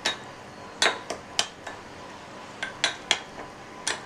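Metal spoon stirring sugar into curd in a bowl, clinking against the bowl's side in a string of irregular sharp clicks, about nine in four seconds.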